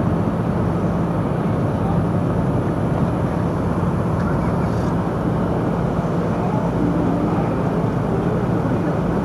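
Steady street traffic noise: cars running on the road and lot, with a constant low engine hum.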